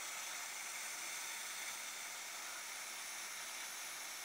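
Steady hiss of water spraying from a garden hose onto grass.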